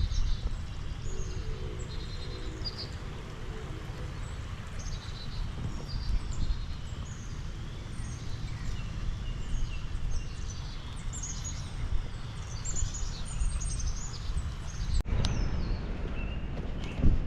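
Several songbirds chirping and whistling over a steady low rumble. About fifteen seconds in, a sharp click is followed by a louder burst of rumbling noise.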